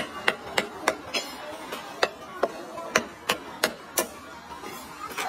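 A knife chopping on a wooden board, about a dozen sharp chops, several in quick runs of three or four.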